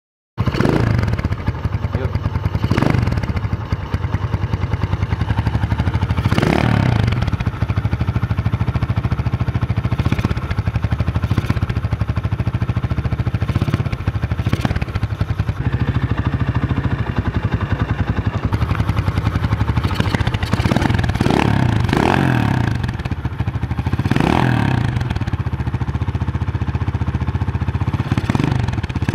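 Rusi Classic 250 motorcycle engine, fitted with a Maikuni 26 mm flat-slide carburetor, running cold at idle while the carburetor is tuned, with several brief blips of the throttle. The engine starts up just after the beginning.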